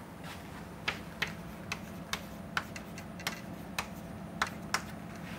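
Chalk on a chalkboard as an equation is written: a string of short, sharp, irregular taps and clicks, about two a second, over a faint steady hum.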